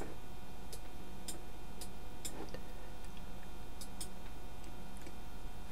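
Computer mouse button clicking: about a dozen sharp, irregularly spaced clicks over a steady background hum.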